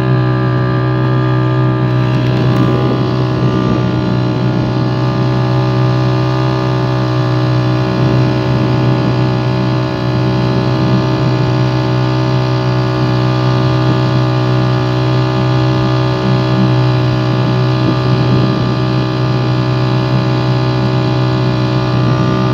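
Motorboat engine running at a steady speed while the boat is under way, an even hum that holds one pitch throughout.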